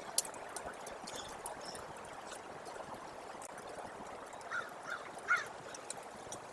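Faint, steady trickling of meltwater with scattered small drips. A bird gives three short calls about four and a half to five and a half seconds in.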